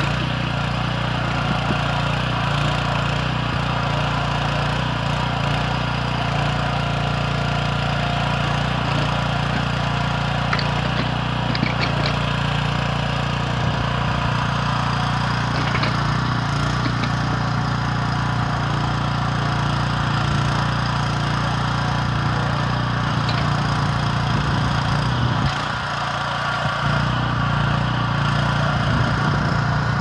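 Kellfri towable backhoe's 9 hp petrol engine running steadily while the backhoe digs, with a few light knocks partway through.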